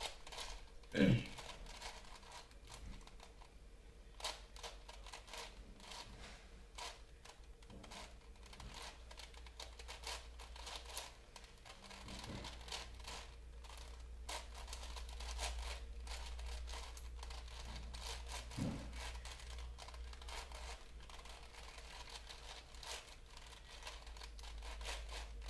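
Hand-turned puzzle cube clicking and rattling in a quick, uneven run of small clicks and rustles, with a louder knock about a second in.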